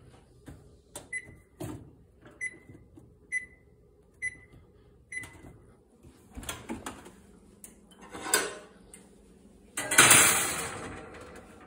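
Electric oven's control panel beeping as its keypad is pressed: five short beeps about a second apart. Then handling clunks and, near the end, a loud metallic clatter of the oven door and wire rack as a steel blade is set inside.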